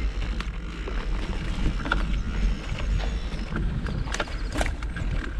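Mountain bike rolling over a rough woodland trail: a steady low rumble with scattered clicks, knocks and rattles from the bike.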